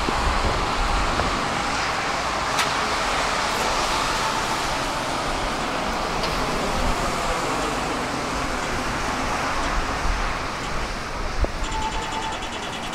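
Tram running along the track: a steady rumble of rolling and motor noise with a few brief clicks. Near the end a faint high electronic tone with a rapid repeating pattern starts.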